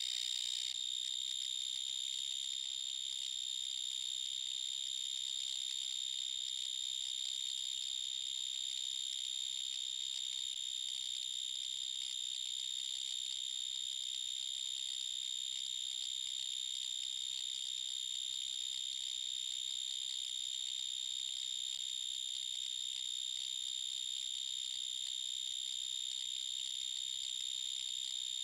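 Played-back recording of an animal species' song used for identification: one unbroken, high, steady tone, with a faint fine rasp, that does not change.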